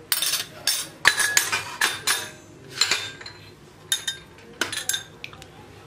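Steel spoon clinking and scraping against a small glass bowl: a run of short, irregular clinks with a few brief scrapes.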